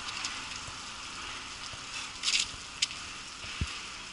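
Steady hissing of steam and smoke venting from a city bus's overheated rear engine compartment, its radiator burst and fire inside. A louder rush of hiss comes about two seconds in, followed by a sharp click and a low thump.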